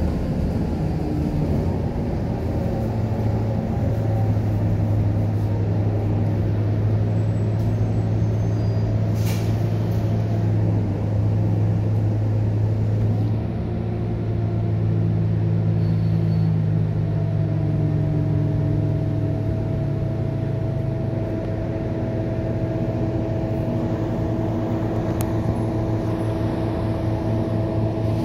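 Scania K230UB bus running on the road, heard from inside the cabin: a steady low engine and drivetrain drone whose pitch steps a few times as the bus changes speed. A single sharp click about nine seconds in.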